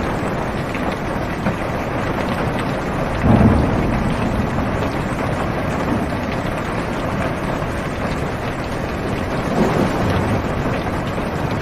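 Steady rain falling on a car's roof and windows, heard from inside the cabin, with a rumble of thunder about three seconds in and a fainter one near the end.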